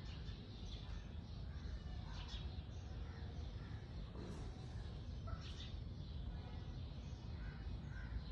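Birds calling now and then, short high chirps and calls scattered through, over a low steady rumble.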